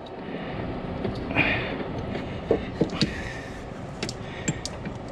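Scattered light clicks and knocks of metal as the old engine mount is wrestled loose by hand, over a steady background hiss.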